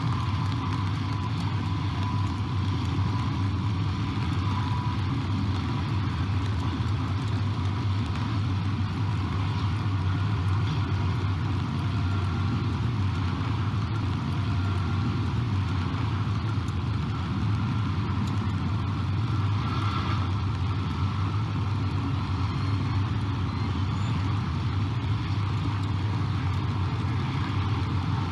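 Steady low rumble of distant road traffic, unchanging throughout, with a faint hiss of light rain over it.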